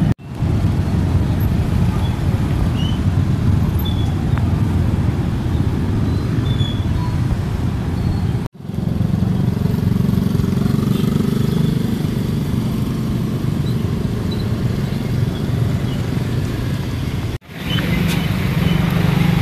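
Motorcycle traffic passing on a wet street: a steady low rumble of small engines and tyres, broken by two short gaps.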